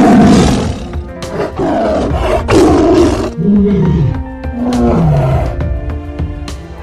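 Animal sound effects over background music: three loud roars, as of a tiger, in the first three seconds, then two lower, drawn-out calls that fall in pitch.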